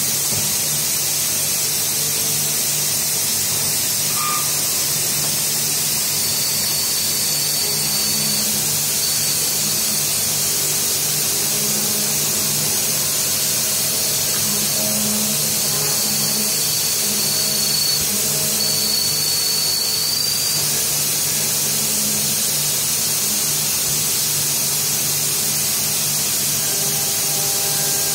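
CNC lathe drilling steel with a U drill: a steady hiss of coolant spray and cutting over the low hum of the running spindle. A thin high whine comes and goes between about six and twenty seconds in.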